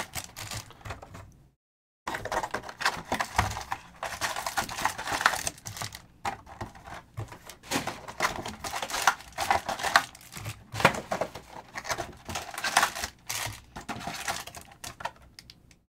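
Wrapped trading-card packs and a cardboard hobby box being handled: irregular crinkling, rustling and light clicking as the packs are pulled out and set down. The sound cuts out completely for about half a second near the start.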